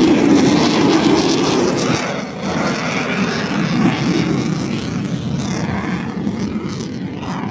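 Airplane engine noise overhead: a loud, steady drone that eases off a little after about two seconds.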